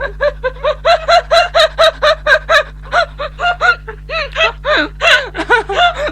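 A person laughing in a long run of short, high-pitched bursts, about four a second.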